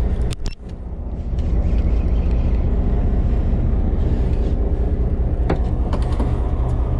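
Fishing boat's engine running with a steady low hum that drops out briefly about half a second in, with a few light clicks near the end.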